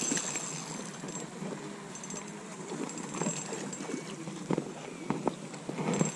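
Footsteps on artificial turf with the rustle of clothes, and two sharp knocks a little after halfway.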